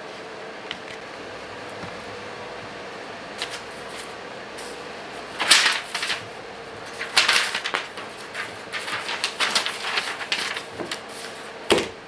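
A string of irregular clicks, clacks and rattles, like something being handled, starts about halfway in, with one sharp click near the end. Under it runs a steady hum with a faint constant tone.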